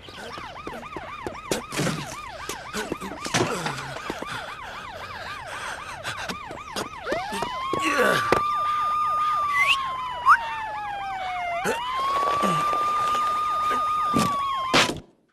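A siren: a fast warble at first, then from about seven seconds in two long wails that rise, hold and slowly fall, with a few thumps along the way.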